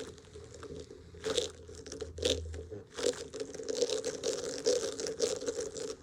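Irregular crunching and crinkling close up as a fidget toy is worked in the hands.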